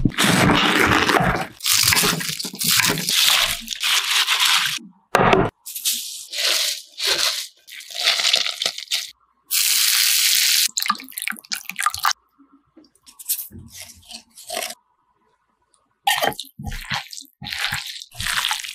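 Food-prep sounds in short takes: crisp cabbage leaves crunching. About ten seconds in comes a steady sizzle of hot oil poured over chili powder and sesame. Near the end, wet squishing as the cabbage is tossed in the chili-oil dressing.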